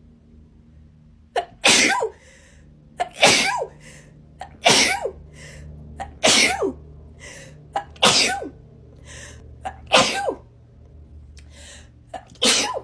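A person sneezing in a rapid-fire series: about seven sneezes in quick succession, roughly a second and a half apart.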